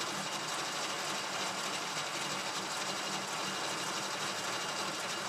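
Bobcat M611 skid-steer transmission and drive chains, turned by an electric motor, running steadily in forward with a steady mechanical hum.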